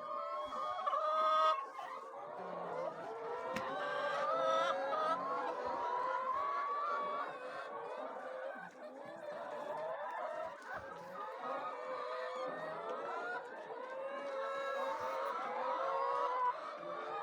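A flock of chickens clucking, many birds calling over one another without a break.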